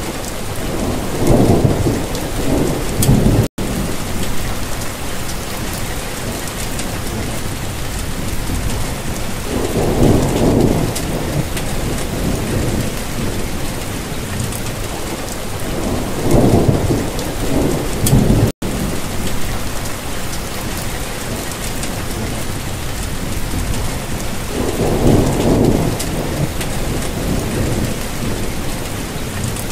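Steady rain with low rolls of thunder swelling up four times, about every eight seconds. The sound drops out for an instant twice.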